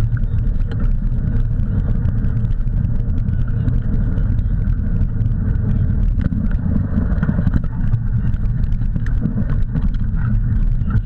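Steady low rumble of wheels rolling over a dirt track, with wind buffeting a handlebar-mounted camera and a scatter of small clicks and rattles from gravel and the rig.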